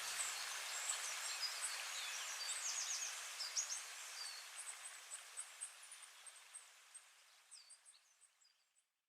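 Small birds chirping and twittering, short high calls and quick downward-sweeping notes, over a steady hiss of outdoor ambience; everything fades out to silence near the end.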